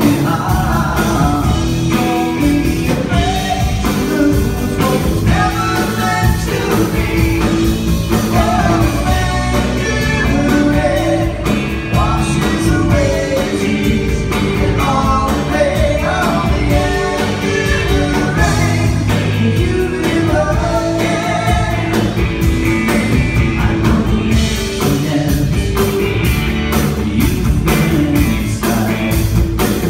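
Live rock band playing a song: sung vocals over electric guitar, electric bass and a drum kit.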